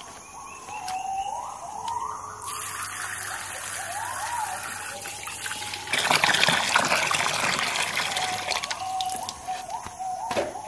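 Water from a garden hose pouring and splashing into a plastic bucket. The flow starts a couple of seconds in, is loudest about six seconds in, and eases off toward the end.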